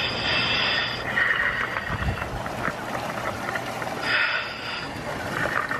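Air hissing from a surface-supplied diving helmet in repeated bursts of about a second, with brief pauses between them.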